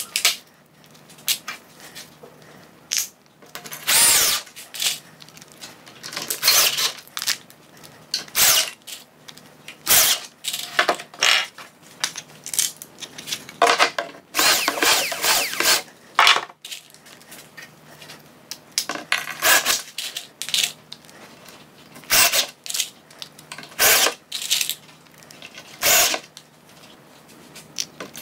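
Cordless drill boring holes for confirmat screws through a plastic drilling jig into chipboard cabinet panels, in a string of short bursts, the longest about two seconds near the middle, with clicks and knocks of the jig and panels being handled in between.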